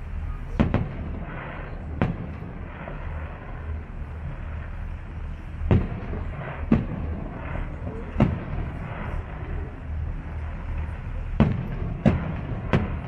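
Fireworks shells bursting, heard from a distance: about nine sharp bangs at irregular intervals, two close together near the start, three spread through the middle and three in quick succession near the end, over a steady low hum.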